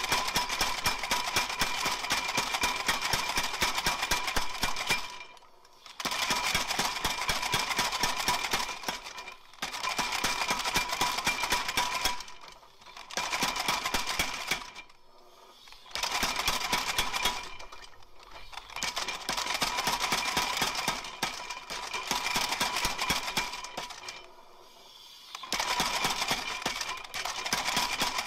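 Homemade mechanical power hammer running, its ram hammering down on the combo dies in rapid repeated blows. It goes in bursts of a few seconds each, with short pauses between.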